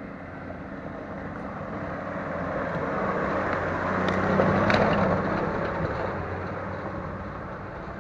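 A car's engine pulling up a steep off-road climb, growing louder to a peak about halfway and then easing off as it moves on. There is a single sharp knock near the middle.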